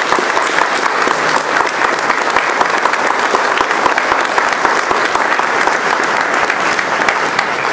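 An audience applauding: many hands clapping in a steady, dense patter.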